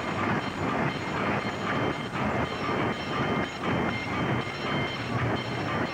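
Small amusement-ride train of open cars rolling past on its rails, wheels clattering over the track joints.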